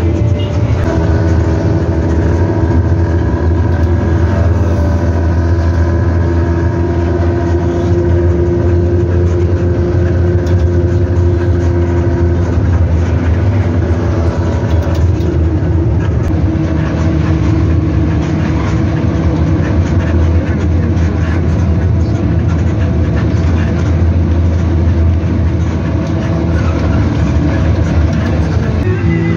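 Nissan Diesel CB87L bus's diesel engine and its growling 'ngorok' exhaust, heard from the rear of the cabin while the bus is under way: a steady deep drone. About halfway through the engine note eases and comes back at a slightly different pitch.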